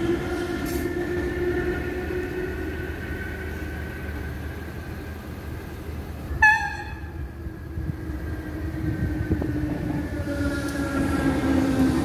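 Dublin DART electric train's motor whine fading as it moves away, then a short, sharp horn toot about halfway through. Near the end the whine of another DART rises as it approaches.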